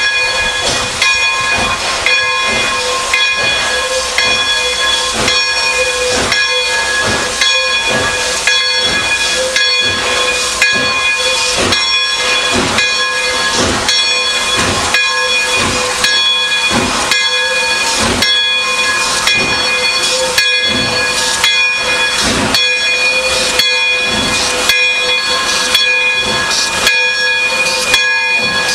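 Pere Marquette 1225, a 2-8-4 Berkshire steam locomotive, working its train past at close range: steady regular exhaust beats, a few a second, over loud steam hiss. A steady whistling steam tone runs under it throughout.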